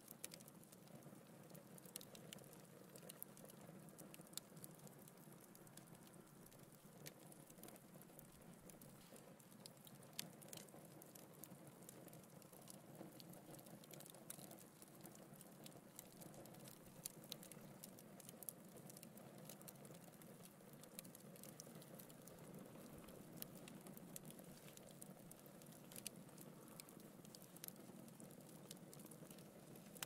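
Wood fire of burning logs in a fireplace, crackling faintly: frequent small sharp pops at irregular intervals over a low, steady rush of flame.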